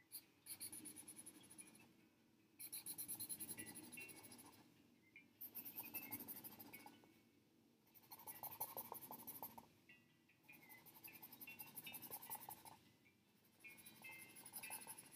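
Faint scratching and squeaking of a Sharpie marker's felt tip on sketchbook paper, drawing short stripe strokes. It comes in bursts of rapid strokes a couple of seconds long, with brief pauses between them.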